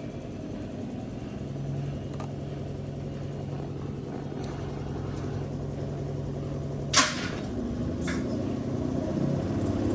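Electrolux Ultimate Care 500 washing machine spinning up in a service-mode spin test: a steady motor and drum hum growing gradually louder as it gathers speed. About seven seconds in there is one sharp knock, and a lighter one a second later.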